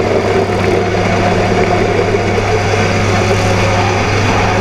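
Electric pump motor of an automatic liquid filling machine running with a steady hum while it pumps lubricant oil through its pipes into a can.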